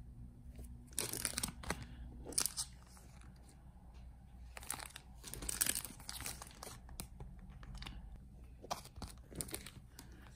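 Clear plastic sleeves holding postcards and sticker sheets crinkling and rustling as they are handled, in several short bursts.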